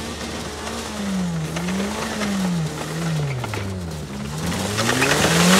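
Mazda 3's four-cylinder engine held at high revs under a burnout, its note rising and falling about once a second as the car spins circles on dirt with its tires shredding. A rush of engine and tire noise swells louder near the end as the car comes close.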